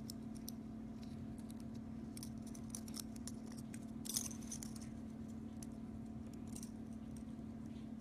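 Faint, light metallic clicks of a steel split ring and fishing hook being twisted together by hand, with a small cluster of clicks about four seconds in, over a steady low hum.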